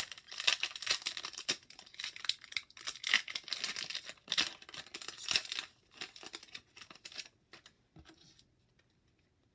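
Plastic wrapper of a hockey card pack being torn open and crinkled: a dense run of crackling rips and rustles that lasts about seven seconds, then dies away.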